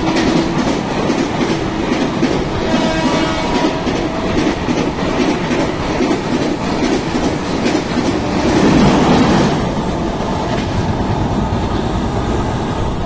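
Indian Railways express passenger coaches passing at speed close by: a continuous rush of noise with rapid clickety-clack of wheels over rail joints, swelling about nine seconds in.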